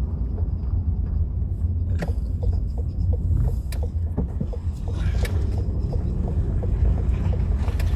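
Steady low rumble of a vehicle driving along a road, with a few light clicks and ticks scattered through it.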